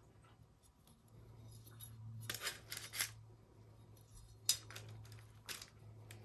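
Faint handling sounds of a tassel being fitted to a metal bookmark: a cluster of small clicks and rustles about two seconds in, then two more single sharp clicks later, over a low steady hum.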